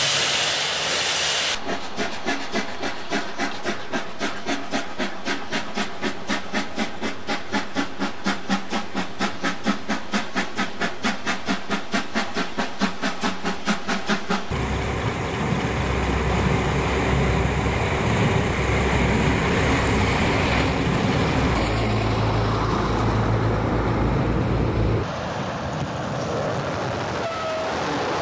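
Steam locomotive working hard, its exhaust chuffing in an even beat of about four a second over hissing steam. About halfway through this gives way to a louder, deeper rumble of a moving train, which drops away suddenly near the end.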